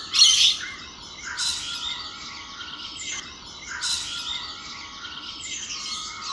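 Mixed chorus of wild birds chirping and calling, with several loud, sharp calls at the start and again about a second and a half and four seconds in.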